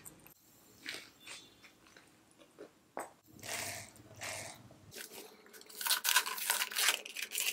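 Close-up eating sounds: soft chewing of french fries, a slurping sip through a drinking straw about three and a half seconds in, then, loudest, a run of crackling and rustling as a taped paper takeaway tub is handled and opened.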